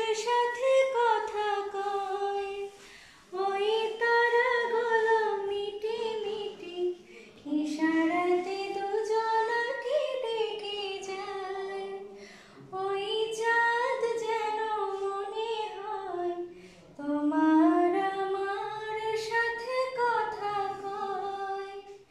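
A woman singing a song unaccompanied: five long melodic phrases, each rising and then falling in pitch, with short pauses for breath between them.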